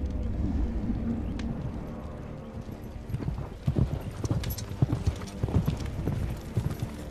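Two horses galloping across dry grassland, their hoofbeats growing louder and sharper from about three seconds in as they come close.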